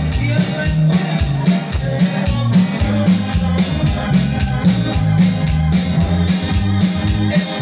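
Live band music played loudly through a PA system: a steady drum beat over a bass line that moves between notes.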